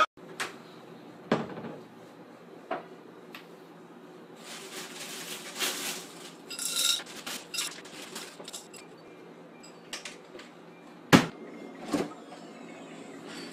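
Kitchen handling sounds at a chest freezer: scattered clicks, rustling and a few light clinks as things are moved about inside it and a bottle is handled, then two sharp knocks about a second apart near the end.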